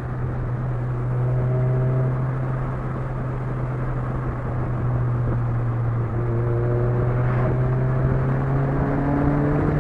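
Chevrolet Vectra 2.2 8-valve four-cylinder with a sports exhaust, accelerating hard, its pitch rising steadily from about six seconds in, over a steady low hum.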